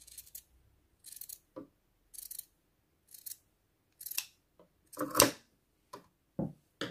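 Scissors cutting through cloth in a series of snips, about one a second, the loudest about five seconds in, trimming the edge of a fabric face mask straight.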